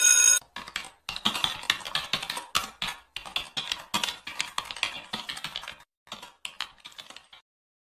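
A brief bright chime at the very start, then a keyboard-typing sound effect: rapid clicking that stops about a second before the end.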